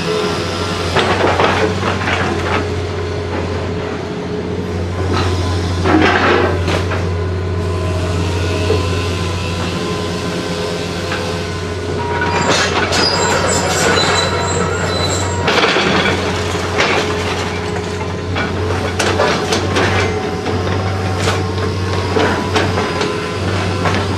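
Heavy demolition machinery running steadily while tearing into a building, with high metal squealing and repeated crashes and clatter of breaking and falling debris. The loudest bursts of crashing come about five to seven seconds in, and again from about twelve to sixteen seconds in.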